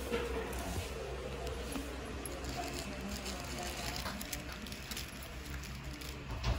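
Faint indoor background: a steady low hum with faint distant voices and a few light clicks.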